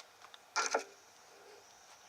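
A brief clatter of parts being handled, about half a second in, amid quiet shop room tone.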